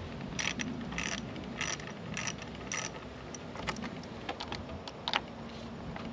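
Ratchet wrench clicking while loosening a car battery terminal nut: a run of about five even clicks a little over half a second apart, then lighter, irregular clicks.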